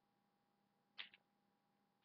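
Near silence with a faint steady hum, broken about a second in by a brief double click or rustle of something handled.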